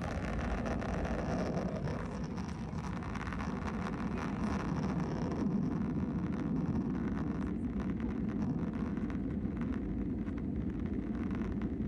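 Steady cabin noise of an Airbus A320-216 with CFM56 engines climbing after takeoff: engine and airflow noise heard through the fuselage as an even low rush.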